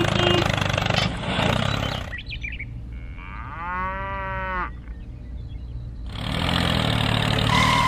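An engine running steadily, fading out after about a second. In the lull a single cow moo of about a second rises and falls, and the engine noise comes back near the end.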